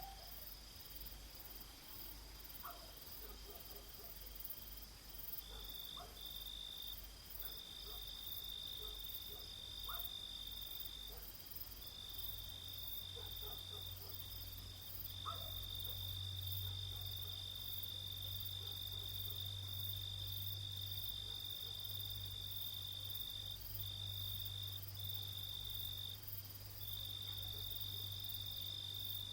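Crickets trilling on a summer night, a steady high-pitched trill that breaks off and resumes several times, over a low steady hum that grows louder about halfway through.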